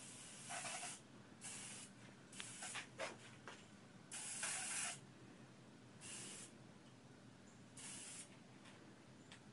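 Small hand-held spray-bottle sprayer misting DuraCoat gun finish onto hanging rifle parts. A steady hiss at the start, then about seven short bursts of spray with gaps between them, the longest near the middle.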